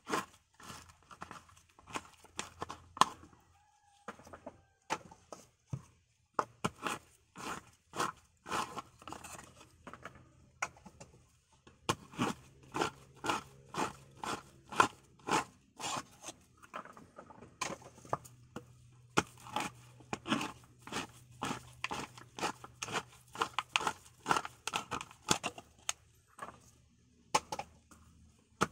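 Dried coconut meat being pried and scraped out of the shell for copra: a repeated sharp crunching scrape, about two strokes a second, with a few short pauses.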